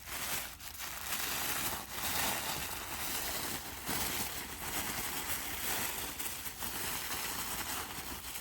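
Packaging of a Hallmark Keepsake ornament box being opened and handled: continuous crinkling and crackling of plastic and cardboard, with short rustles and snaps.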